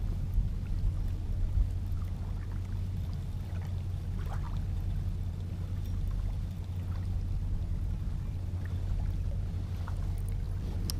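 Steady low rumble of wind buffeting the microphone, with a few faint clicks about four seconds in and again near the end.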